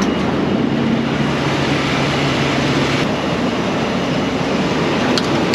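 John Deere combine running, a loud steady rushing noise with a faint low hum underneath and no change in pace.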